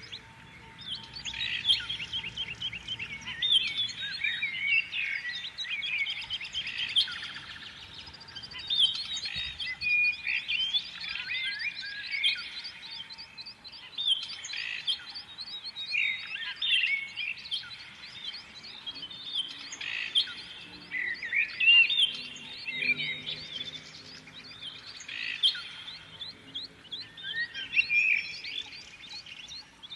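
Several songbirds singing and chirping together in a dense, overlapping chorus, with a fast repeated trill about a third of the way in.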